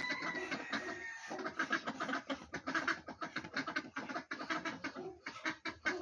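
Poultry calling in an aviary: many short, overlapping clucks and chatters, with a thin whistle-like call during the first second.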